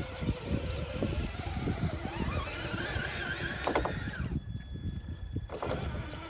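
Radio-controlled crawler truck's small electric motor whining, rising in pitch about two seconds in and holding high, then cutting off a little after four seconds. Irregular low rustling runs underneath.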